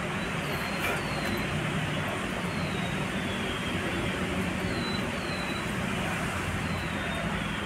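Steady background traffic noise with a low engine hum, and a short high chirp that falls slightly in pitch, repeating every second or so.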